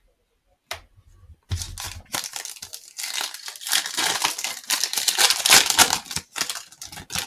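Wrapper of a Panini Hoops trading-card pack being torn open and crinkled by hand. The dense crackling starts about a second and a half in, is loudest in the middle and thins out near the end.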